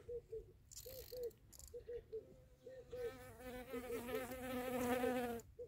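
Fishing reel whirring as line is wound in on a hooked fish. It comes first in short rhythmic pulses, about four a second, then as a louder continuous whir from about three seconds in, stopping just before the end.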